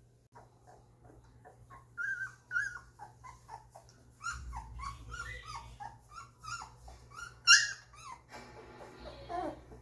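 Two-week-old golden retriever puppies whimpering and squeaking, a run of short high cries from several pups, with one louder squeal about three quarters of the way through.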